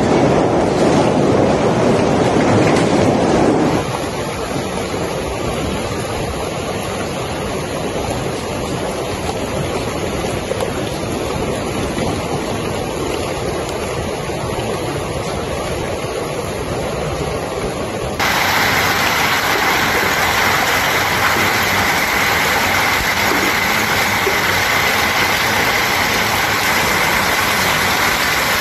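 Heavy hail and rain pelting down, a loud steady noise. It changes abruptly about four seconds in and again about eighteen seconds in, as separate recordings of the storm follow one another, the last of them hail striking a swimming pool.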